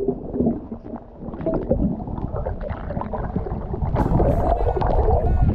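Muffled underwater churning and gurgling of a snorkeler swimming, heard through a camera held below the surface; about four seconds in the camera breaks the surface and the sound turns bright and splashy with air and water noise.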